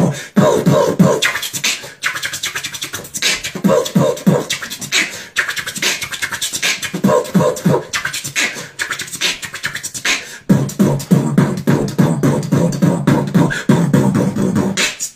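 A man beatboxing: a fast, unbroken rhythm of mouth-made drum sounds, sharp clicks and snare hits mixed with short voiced tones.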